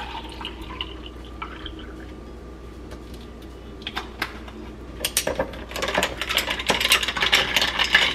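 Coffee poured from a bottle over ice in a glass. From about five seconds in comes quick, steady clinking as the ice and a glass straw knock against the glass while the drink is stirred.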